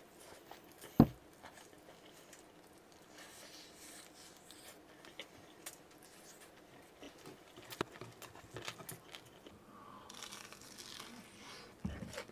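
Hands tearing and crinkling food and its wrapping, a quiet rustle with scattered clicks. A single sharp knock about a second in is the loudest sound.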